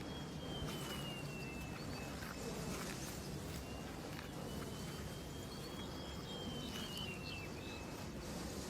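Rural outdoor ambience with scattered faint footstep or hoof clicks of animals moving about. A thin, high whistle-like tone slowly rises and falls twice.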